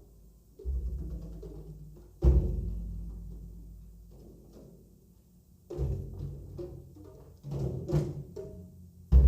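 Japanese taiko drums: deep single strikes that boom and die away slowly, a couple of seconds apart, then quicker runs of lighter strokes, with another big strike near the end.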